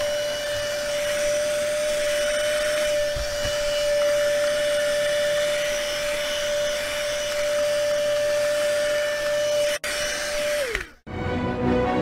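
Honk H0431 cordless rechargeable mini vacuum cleaner running, a steady high whine over an airflow hiss. Near the end the whine falls in pitch as the motor winds down, and music begins in the last second.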